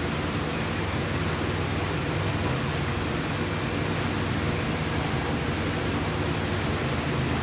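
A steady rushing noise with a constant low hum beneath it, unchanging throughout.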